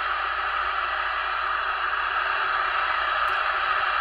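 Steady static hiss from a CB radio's speaker, the empty channel heard with no station answering the call; it cuts off suddenly near the end.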